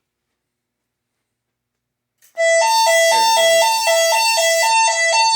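Silence, then about two seconds in a fire alarm voice-evacuation speaker starts a loud alternating two-tone signal, switching between a lower and a higher pitch about every quarter second. This is the evacuation tone that comes before the spoken emergency message.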